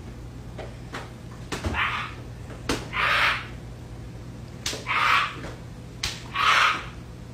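Broom sweeping a quarry-tile floor: four strokes, each a tap of the broom on the tile followed by a short bristle swish, over a steady low hum.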